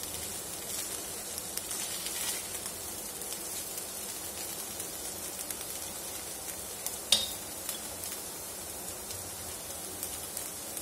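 Puffed rice and vegetables sizzling gently in a non-stick kadai, with a spatula scraping through the mix in the first couple of seconds. A single sharp click comes about seven seconds in.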